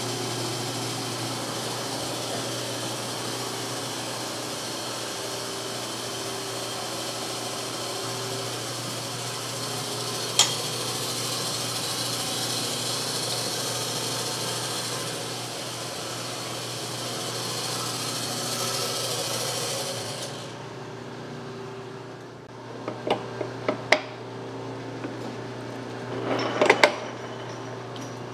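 Large gear-head metal lathe running steadily with a constant hum, then going quiet about 20 seconds in. A few sharp metallic clicks and clanks follow near the end as the machine is handled.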